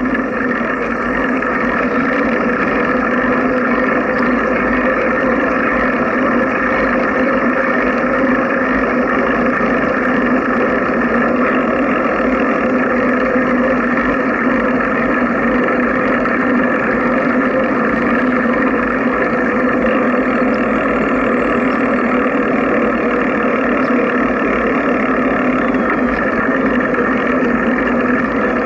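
Steady drone of riding noise on a bicycle-mounted camera: wind and tyre noise on the microphone, with a few fixed tones humming through it and no change in level.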